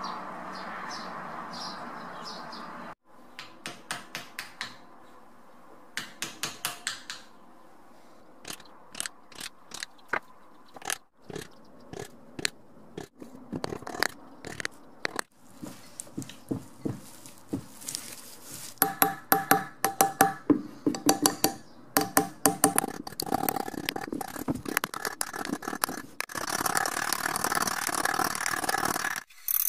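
Hand sanding of the brass-ringed end of a wooden axe handle: a sanding sponge scraping in quick back-and-forth strokes, stopping and starting several times, with the strokes coming faster and louder in the second half.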